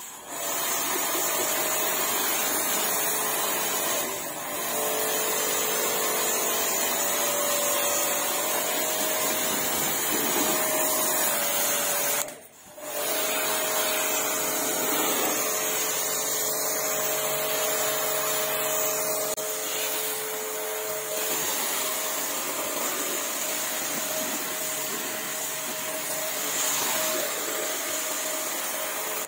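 Kortex KTX-R5D pressure washer running steadily, its 1.8 kW electric motor and pump humming under the hiss of the high-pressure spray striking a car's body panels. The sound drops out briefly about twelve seconds in, then carries on.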